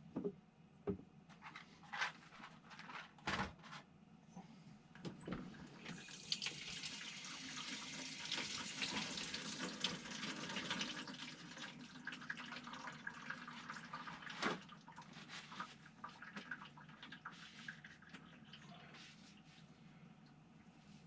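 A few knocks and clicks, then water running for several seconds from about six seconds in, easing off and fading out, with another knock partway through.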